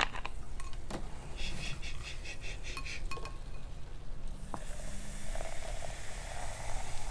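A few light clinks, then from about four seconds in a steady fizzing hiss as Coca-Cola is poured from a plastic bottle into a glass mug of crushed ice.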